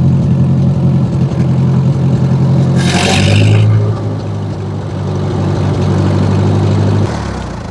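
A 1955 International 300 Utility tractor's four-cylinder gasoline engine running steadily, freshly started on new oil with a newly fitted choke cable, and running much better. A short hiss comes about three seconds in, and the engine is shut off and runs down about seven seconds in.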